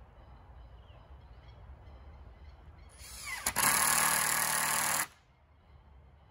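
Cordless drill run into the base of a timber post: it winds up with a rising whine, runs loud and steady for about a second and a half, then stops suddenly.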